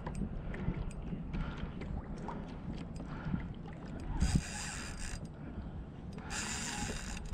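Fishing reel's drag screaming twice as a hooked fish pulls line off, a run of about a second starting about four seconds in and a shorter one near the end, over a low rumble of wind and water.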